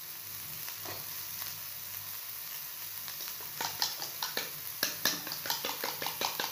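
Chopped onion, carrot, green chilli and beans frying in oil and ghee on a flat pan: a steady sizzle, joined from about halfway by a quick run of sharp crackles and pops.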